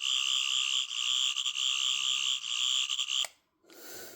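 Toy sonic screwdriver's electronic sound effect played through its small speaker: a high, slightly warbling buzz held for about three seconds, then cut off with a click.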